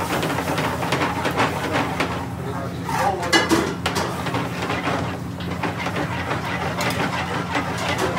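Metal spoon scraping and clinking against a metal frying pan as yogurt is stirred into a korma sauce, with a cluster of sharper knocks about three seconds in, over a steady low hum.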